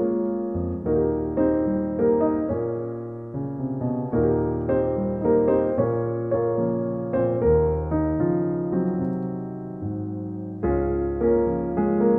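Background music played on piano: notes and chords struck one after another and left to die away, with low bass notes held beneath.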